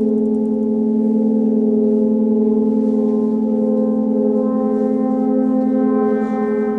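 Gongs ringing in a sustained, slightly pulsing drone of many overlapping tones, with no fresh strike. Higher overtones swell in about four and a half seconds in.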